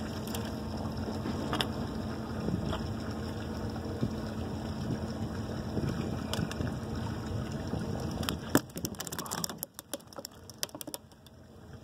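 Steady wind and water noise on an open dock. About eight seconds in comes a run of sharp clicks and knocks, as of the camera being handled.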